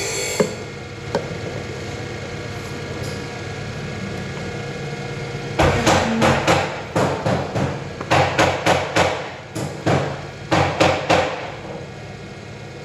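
A workshop machine hums steadily. About halfway in, a rapid run of sharp, ringing knocks starts, two or three a second, and lasts some six seconds.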